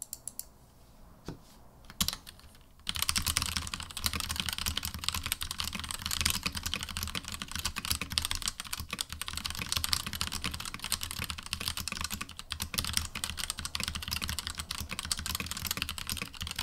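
Drevo Calibur V2 Pro mechanical keyboard with Otemu Red linear switches being typed on quickly: a dense, steady run of keystrokes. A few single clicks come first, and the continuous typing starts about three seconds in.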